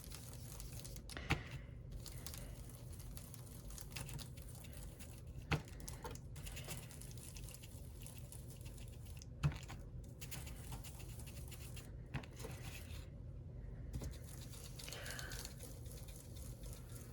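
Ink dauber rubbing and dabbing pigment ink over a paper stencil: a faint, continuous scratchy rustle, with a few light taps several seconds apart.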